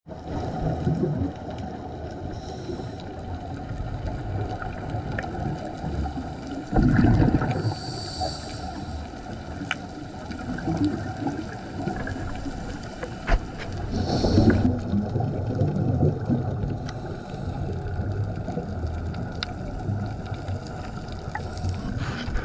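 Underwater sound on a coral reef picked up by a diving camera: a low rumbling wash with scattered sharp clicks. Louder surges about seven seconds in and again around fourteen seconds, the bubbles of a scuba diver's exhalation.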